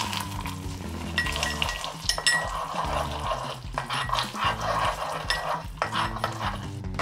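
Hot caramel in a ceramic cup spitting and crackling as water is stirred into it, with a metal spoon clinking against the cup, over background music.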